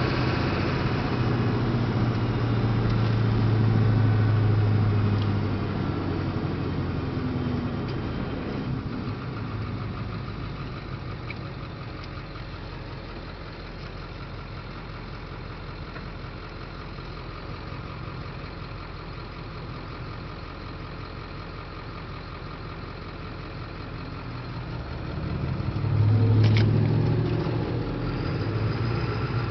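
A 7.3-litre diesel V8 truck engine running while driving. It is loud under throttle at first, falls quieter for a long stretch in the middle, and rises again near the end, with a single sharp click. This throttle-linked change is where the owner hears injector-like knocking and a 'kachuu' noise that come with engine load and go away off the pedal.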